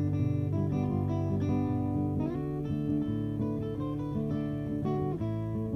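Background music of acoustic guitar, plucked and strummed.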